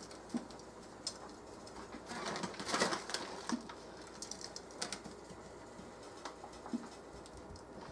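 Faint rustling of a plastic zip-top bag and dry breadcrumbs being pressed by hand onto breaded pork chops on a plate, with scattered small clicks and a louder rustle about three seconds in.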